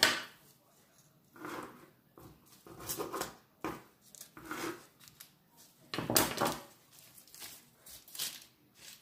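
A sharp clack as a knife is picked up off the counter, then a kitchen knife cutting and scraping along the edge of rolled dough on a plastic sheet, in several short strokes with the plastic crinkling. The loudest strokes come a little past the middle.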